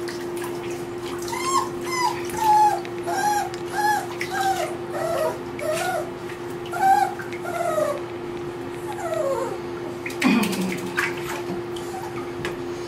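Aussiedoodle puppy whimpering during a bath: a run of short, arching whines, about two or three a second, then a longer falling whine near the end.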